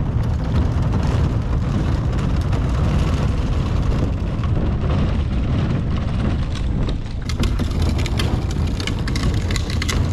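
Heavy wind rumble on the microphone outdoors, with a run of sharp clicks and knocks in the second half while the small boat is hauled up the ramp on its transport cart.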